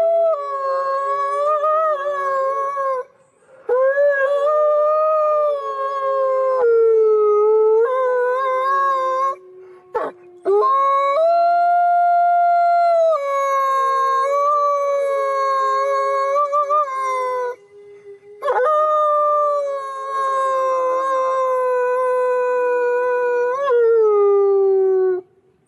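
White wolf howling: about four long, drawn-out howls with short breaks between them. A lower steady note sometimes runs beneath the main howl, and the last howl slides down in pitch before it stops.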